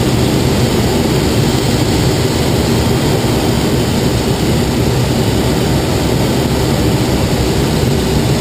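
Steady rush of air around a glider's canopy on aerotow, with the propeller tow plane's engine droning ahead. The sound is loud and even throughout.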